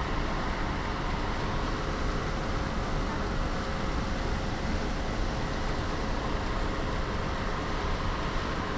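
Steady rushing noise aboard a ferry under way: wind buffeting the microphone and water churning along the hull, with a faint steady tone running underneath.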